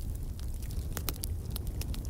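Wood fire burning in a fireplace: a steady low rumble of the flames with frequent sharp crackles and pops, the loudest about a second in.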